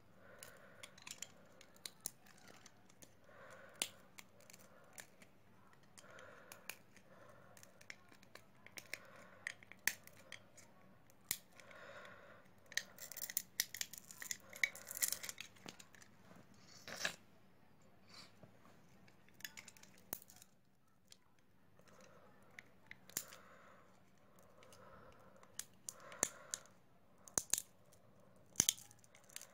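Hands working on a smartphone during a display replacement: irregular sharp clicks and taps of small parts and tools, mixed with short scraping and tearing sounds, busiest about halfway through and again near the end.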